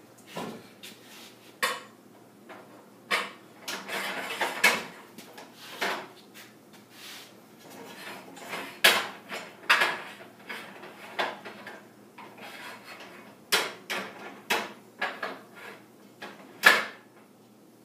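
Metal parts of a Shopsmith floating table and its support tubes clanking and knocking as they are handled and fitted onto the machine: a string of irregular sharp knocks with a short scrape, the loudest knock near the end.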